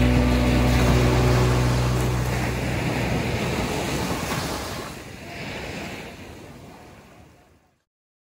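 The song's last chord dies away over the first couple of seconds, leaving a steady rush of waves and wind that fades out to silence near the end.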